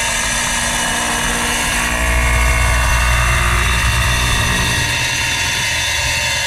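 Wet tile saw running and cutting through a tile, its diamond blade spraying water; the steady machine noise gets louder and deeper about two seconds in.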